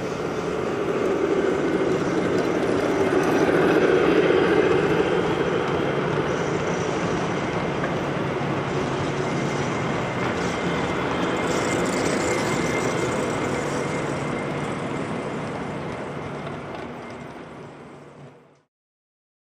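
Gauge 1 model train rolling past on its track: a steady rumble of wheels on rails that swells about four seconds in, then fades away near the end.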